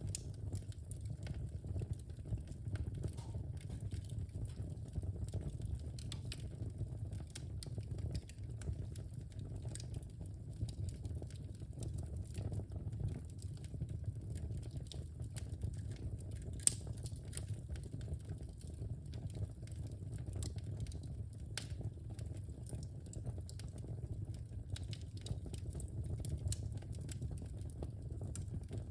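Wood fire in a fireplace crackling: a steady low rumble of the flames with scattered sharp pops and snaps, one louder pop a little past halfway.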